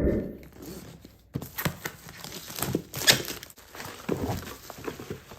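Handling noise: a thump at the start, then a run of irregular knocks and clicks with some rustling, as computer parts and their packaging are moved about.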